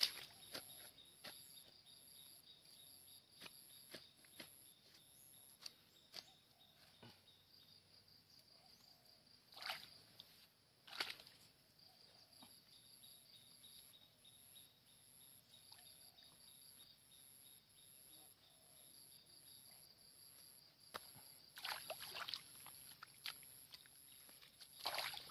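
Faint wet sloshing and splashing of shallow muddy water a few times, a short burst about ten seconds in, another a second later and a cluster near the end, as hands grope through the mud for stranded fish. Under it, a faint steady high-pitched pulsing chorus of insects.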